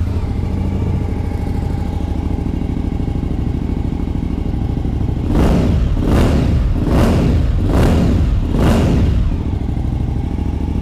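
2021 Suzuki V-Strom 1050 XT Tour's 1,037 cc V-twin idling through a Blackwidow aftermarket silencer, just after starting. About halfway through it is revved five times in quick succession, each rev rising and falling, then it settles back to idle.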